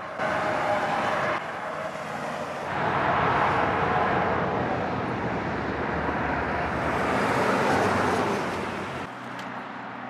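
Highway traffic: a steady rush of tyre and engine noise from cars and trucks passing at speed. It builds about three seconds in and eases off near the end as vehicles go by.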